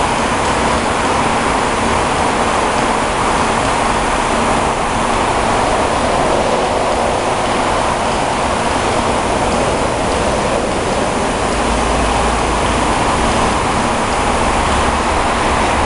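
Zayer KF3000 CNC bed mill running under power: a loud, steady whirring hiss with a faint steady tone under it. A deeper hum joins near the end.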